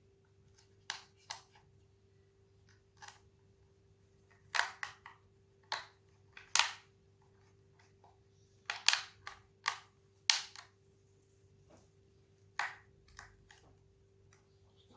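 Hard plastic parts of a Dyson V6 cordless vacuum being handled and fitted back together: irregular sharp clicks and knocks, some in quick pairs, with the loudest near the middle.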